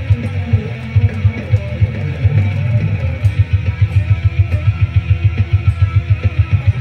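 Electric guitar played over a backing track, with a fast, steady low beat under it.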